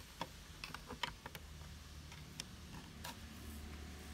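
Scattered faint, sharp clicks and taps of a small plastic adapter case and its circuit board being handled and pried apart.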